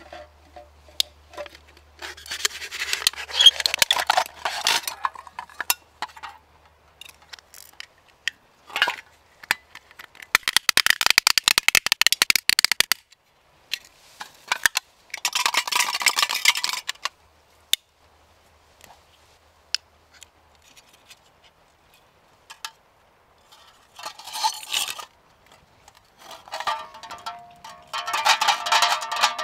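Aluminium beer can being cut with a knife and crumpled by hand, in several separate bursts of crinkling and scraping metal.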